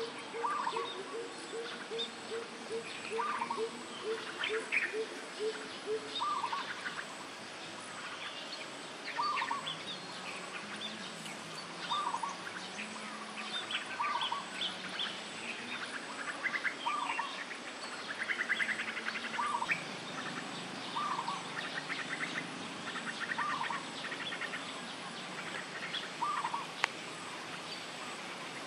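Birds calling in the open: a short call repeats every two to three seconds, with scattered higher chirps and a brief trill about 18 seconds in. For the first six seconds or so a quick run of low notes, about three a second, goes on beneath them and fades out. A faint steady high whine lies under it all.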